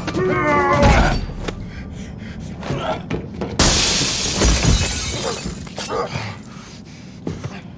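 Glass shattering in a sudden loud crash about three and a half seconds in, trailing off over a second or so, amid the thuds and knocks of a close-quarters fistfight and knife struggle.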